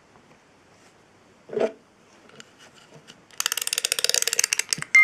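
Music box being wound by its key: a single knock about a second and a half in, then rapid ratchet clicking for about a second and a half near the end.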